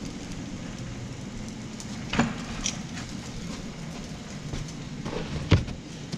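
Metal clanks from tools and parts being handled, with two sharp knocks, about two seconds in and again near the end, over a steady low hum.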